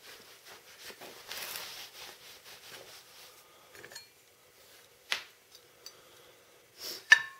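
Steel drive pulley, punch and rag being handled on a vise after the needle bearings are knocked out: a stretch of rustling, then two sharp metal clinks about two seconds apart, the second the loudest with a short ring.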